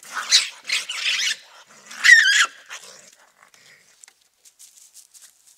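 Raccoons fighting: four harsh, noisy screeching calls in the first two and a half seconds, the last and loudest with a high wavering squeal, then only a few faint ticks.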